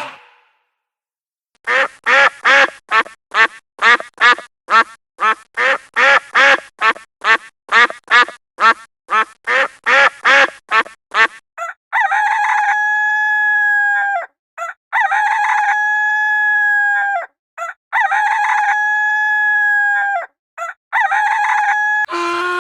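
Farmyard fowl calling: a quick run of short calls, about two a second, then four long held calls with short breaks between them.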